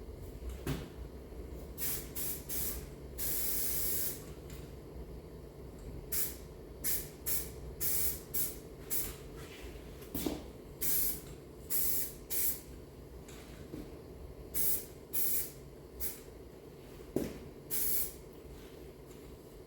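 Self-etching primer being sprayed in many short hissing bursts, with one longer spray a few seconds in, over a faint steady low hum.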